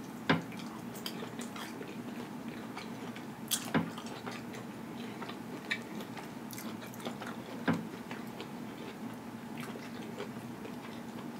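A person biting and chewing pizza close to the microphone: wet mouth clicks and smacks, the sharpest about a third of a second in, again near 4 s and near 8 s, over a faint steady hum.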